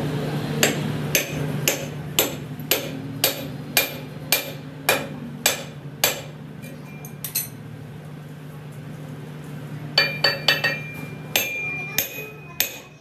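Hammer blows on a steel chisel held against a steel axle tube clamped in a lathe chuck: sharp metal-on-metal strikes about twice a second for the first six seconds, then after a lull a quicker run of blows that ring on. A steady low hum underneath stops about eleven seconds in.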